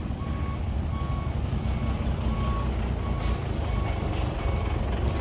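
A backup alarm on heavy earthmoving machinery beeps steadily, roughly three beeps every two seconds, over the low rumble of a running diesel engine.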